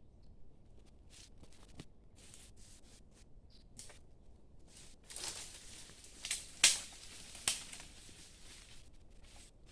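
Short scratchy rustling and scraping sounds of something being handled, louder and denser midway, with two sharp snaps a little under a second apart.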